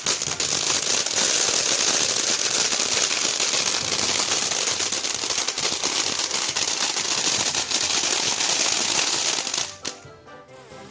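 Imperial Dragon Go Bananas firework fountain crackling densely, a fast rattle of tiny pops over a steady spray hiss. It drops away sharply near the end.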